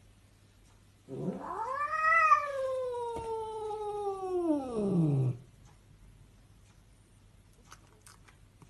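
A cat's single long yowl, lasting about four seconds, rising in pitch and then sliding slowly down.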